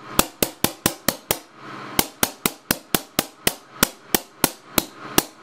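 24 V solenoid valve on an air-cannon reservoir at 400 psi, opened by short electronic pulses at minimum pulse width: a rapid string of sharp air pops, about four a second, with a brief pause about a second and a half in. Each pop is the valve snapping open to release a small shot of air, and it fires reliably on every pulse.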